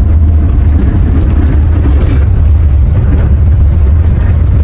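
Steady low rumble of a bus on the move, heard from inside the cabin: engine and road noise.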